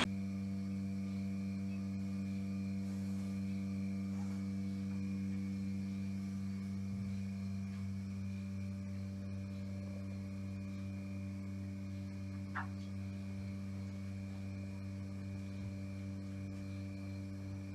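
Steady low hum with a faint high-pitched whine above it, unchanging throughout; a single faint click about twelve and a half seconds in.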